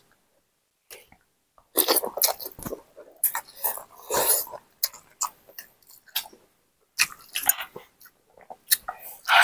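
Mie bakso noodles being slurped and chewed in irregular noisy bursts, with a short pause about a second in before the slurping starts.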